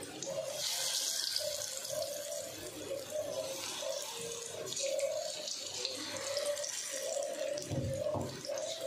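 Semolina pakoras deep-frying in hot oil in a steel wok: a continuous sizzling hiss, brighter for about a second just after batter is dropped into the oil.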